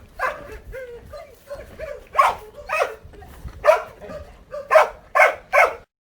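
Jindo dog barking in a run of short, sharp barks, with quieter yelps between and a quick cluster of loud barks near the end.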